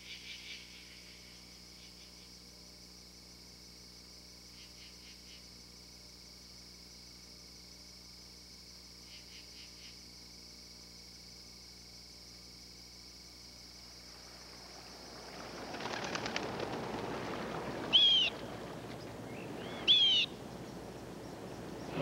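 Night-time nature sounds: a faint steady high drone of insects with a few short chirp trains, then a rushing noise swells up about fifteen seconds in. Two sharp bird calls stand out near the end, about two seconds apart, the loudest sounds here.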